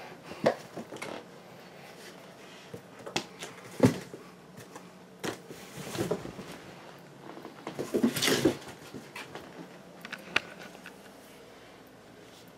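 Kittens at play: scattered soft thumps and rustles as they leap, land and scuffle on a sheet-covered surface among cardboard boxes and a paper bag. The loudest thump comes about four seconds in, with a busy cluster of rustling knocks around eight seconds.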